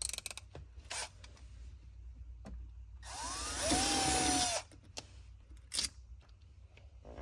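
Power drill spinning up and running for about a second and a half, drilling a mounting hole through the truck's brake pedal with a 9/32-inch bit, then stopping. A few light clicks and knocks come before and after it.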